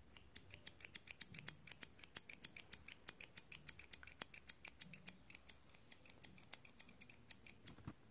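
Small spring-loaded thread snips being snapped open and shut over and over: a quick, even run of crisp metal clicks, several a second, that stops shortly before the end.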